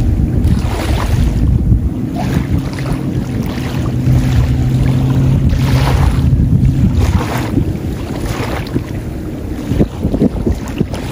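Gusts of wind buffeting the microphone over a steady low motor hum, typical of a boat's engine on the water, which fades out about eight seconds in.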